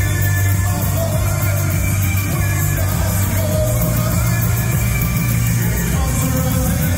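Post-punk/new wave band playing live and loud, with heavy bass and a singer's voice yelling over the music.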